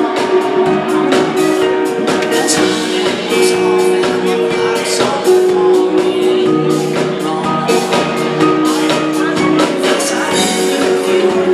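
A band playing live, with drum kit hits over sustained held chords.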